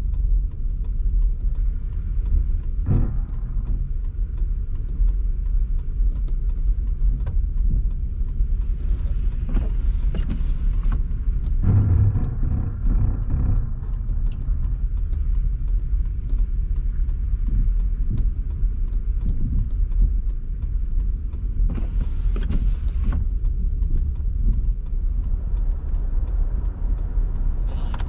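Car driving on the road: a steady low rumble of tyres and engine, with a few short swells of hiss here and there.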